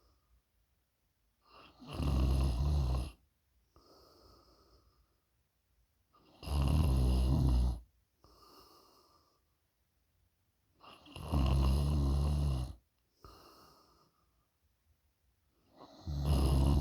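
A sleeping person snoring loudly in a regular rhythm: four long, low, rattling snores about four and a half seconds apart, with a softer breath between each.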